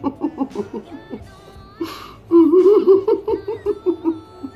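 A woman crying in rhythmic, sob-like pulses, then a louder drawn-out wavering wail about halfway through, over faint background music.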